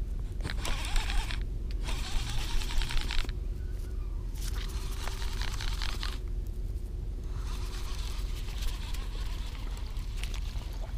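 Daiwa Coastal SV TW baitcasting reel being cranked in several spells of fast, scratchy winding with short pauses between them, retrieving a hooked spotted bay bass. A steady low rumble runs underneath.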